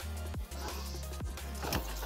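Background music with a deep bass line and repeated drum hits.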